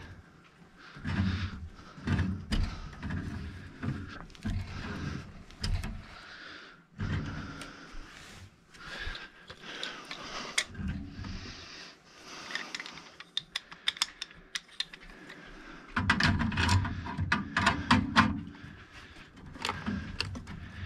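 Hand tools being handled at a gas furnace: irregular small metal clicks and clinks with rustling, and a flurry of rapid clicks near the end.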